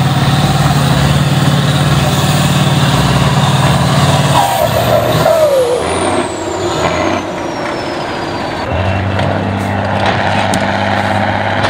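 Off-road trial truck's engine running hard, then easing off about four and a half seconds in, with a short squeal and a high whine falling in pitch for a couple of seconds; the engine comes back in steadily at a lower pitch near the end.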